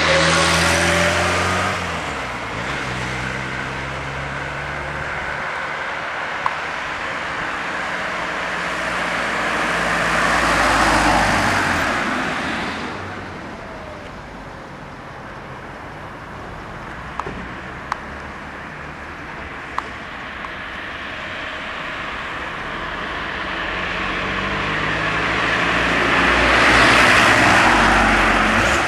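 Cars passing by on a street: road noise swells and fades three times, the first pass at the start with its engine tone falling as it goes by. A few small clicks about halfway through.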